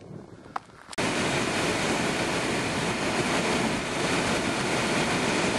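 Steady road and wind noise from a vehicle driving along a highway, cutting in suddenly about a second in.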